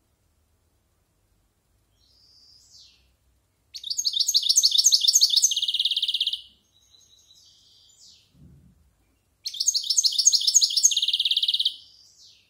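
European goldfinch singing: two loud phrases of rapid twittering notes, starting about four and about nine and a half seconds in, each closing with a fast trill, with softer notes between them. A short low thump comes about eight and a half seconds in.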